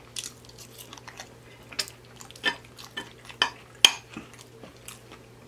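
Metal fork clinking and scraping on a ceramic plate while scooping food, in scattered sharp clicks, the loudest a little under four seconds in.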